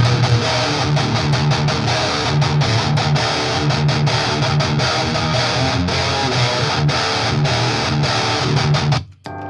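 Distorted electric guitar played through a Line 6 Helix modeler, a heavy riff of rapid chugged notes. About nine seconds in it stops briefly, then a chord rings.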